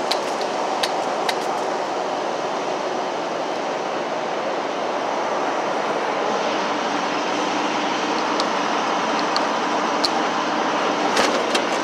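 Steady rumble of an idling diesel semi-truck engine, with a few sharp clicks and knocks scattered through.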